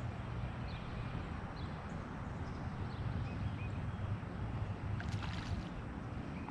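Open-water ambience from a kayak: a steady wash of water and low wind rumble, with a few faint bird chirps and a brief splashy rustle about five seconds in.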